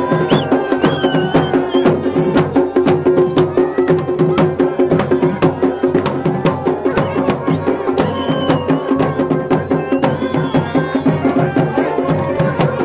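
Garhwali dhol and damau drums beaten in a fast, dense rhythm, with a masakbaja bagpipe playing a wavering melody over its steady drone.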